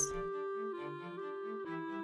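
Soft background music: long held notes that step to new pitches a few times, over a gentle repeating lower figure.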